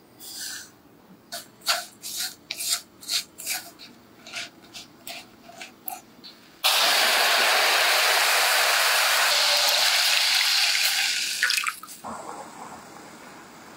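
A silicone spatula scrapes and clicks as it stirs black tea leaves and sugar in a wok while the sugar caramelises. About halfway through, milk is poured into the hot caramel and a loud, steady hiss starts suddenly. A little before the end it dies down to a softer simmer.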